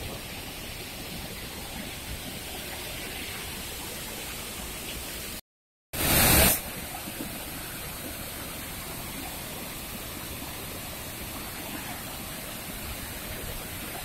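Steady rushing roar of a waterfall in full flow, white water pouring over rocks. About five seconds in the sound drops out for half a second, then a short loud burst of noise comes before the rushing resumes.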